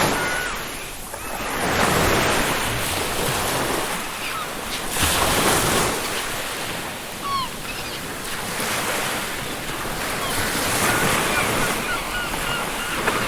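Ocean waves breaking and washing up a beach, swelling and ebbing every few seconds, with short seagull calls over the surf, several close together near the end.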